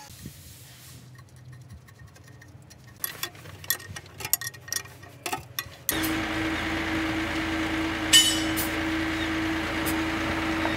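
Scattered metallic clicks and clinks of hand tools on a fitting of a wheel loader. About six seconds in, a steady machine hum with a constant mid tone starts abruptly, with one sharp clank a couple of seconds later.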